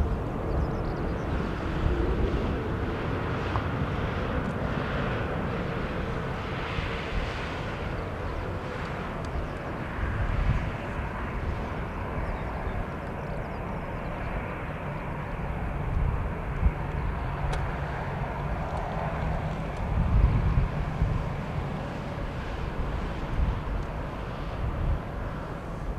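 Boeing 787-8 jet engines running at taxi power, a steady hum, under heavy gusty wind buffeting on the microphone.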